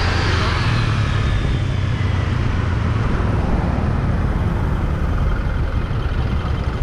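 Street traffic: a motor vehicle passes, its engine note falling in pitch over the first few seconds, over a steady low rumble.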